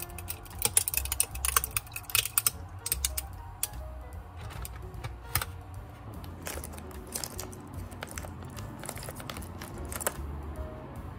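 Light clicks and clatters of small aluminium coffee capsules knocking together as a hand rummages through a basket of them, with background music under it.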